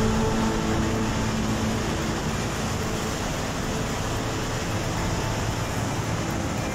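Glacier-burst flash flood torrent: muddy, debris-laden floodwater rushing with a steady, even roar. The tail of background music fades out about a second in.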